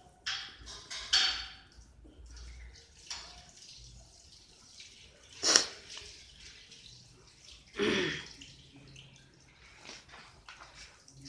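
Ballpoint pen writing on paper: a series of short scratchy strokes and taps, the sharpest about five and a half seconds in.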